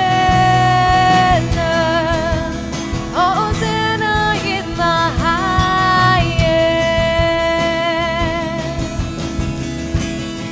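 Live worship band playing: a singer holds long, sliding notes with vibrato over guitar and a steady beat.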